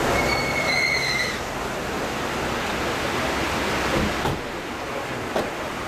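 Steady outdoor street and traffic noise, with a short high squeal near the start and two sharp clicks later on.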